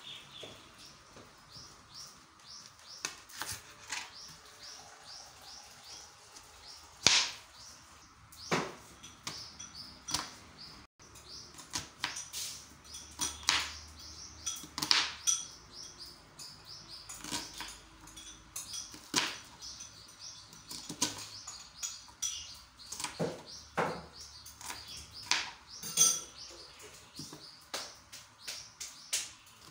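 Kitchen knife cutting a red onion on a plastic cutting board: irregular sharp knocks of the blade striking the board, with runs of quicker, lighter taps in between.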